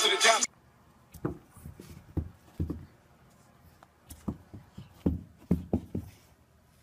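Rap music cuts off about half a second in. A series of soft, irregular thumps and taps follows, about a dozen over five seconds.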